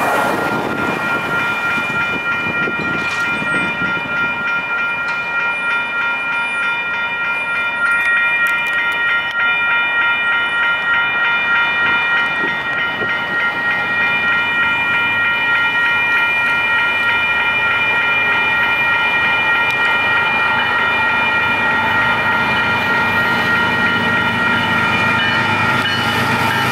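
Railroad grade-crossing signal bells ringing on and on with a steady, unbroken ring. Near the end, the low rumble of an approaching freight train rises beneath them.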